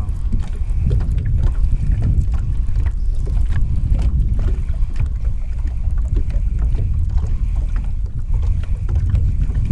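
Wind buffeting the microphone with a steady low rumble, over water on a boat, with scattered small clicks and ticks throughout.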